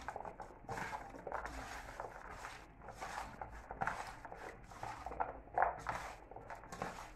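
Hands mixing raw pork with chopped vegetables and seasoning in a metal bowl: an irregular run of soft rustling, squishing strokes.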